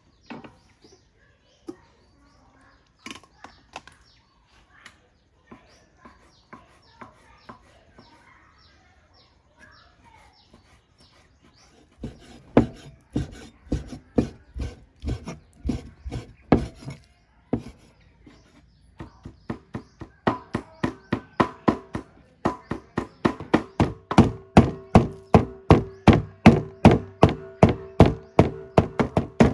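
Cleaver chopping raw pork on a round wooden chopping board. A few light knocks at first, then steady chopping from about twelve seconds in, which speeds up into fast, even mincing strokes about three a second, each with a short ring.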